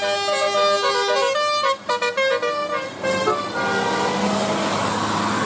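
Indonesian bus telolet horn playing a quick melody of several notes, a few tones sounding together and changing pitch step by step. After about three seconds the tune stops and a steady rushing noise takes over.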